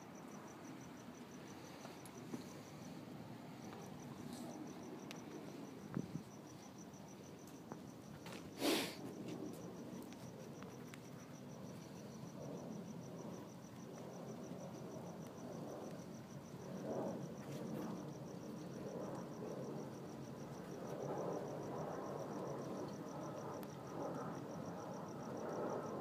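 A cricket chirping in a steady, fast, high trill over a low background murmur, broken once, nearly nine seconds in, by a short burst of noise.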